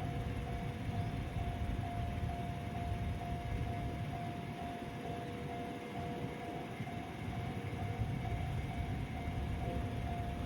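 Japanese railway level-crossing alarm ringing: an electronic bell repeating its ding evenly, over a steady low rumble.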